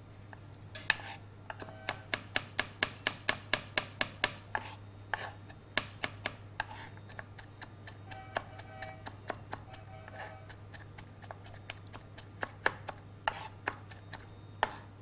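Large kitchen knife finely chopping garlic and ginger on a wooden cutting board: a steady run of sharp knocks, about three a second, that thins out in the middle and picks up again near the end.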